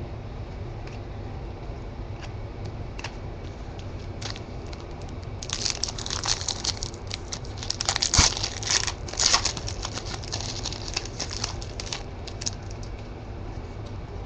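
Foil trading-card pack wrapper crinkling and rustling as it is handled, in a dense crackly stretch from about five to twelve seconds in, loudest around eight seconds, with a few light clicks before it.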